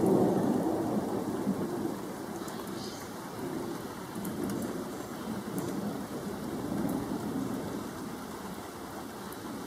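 Thunder rolling during a thunderstorm, loudest right at the start and dying away over a couple of seconds, then two weaker swells of low rumbling, with rain falling.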